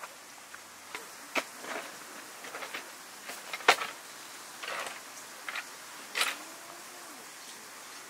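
Folding camp table with a wooden top and metal legs being unfolded and set down on gravel: a string of separate clacks and knocks, about half a dozen, the sharpest one a little before the middle.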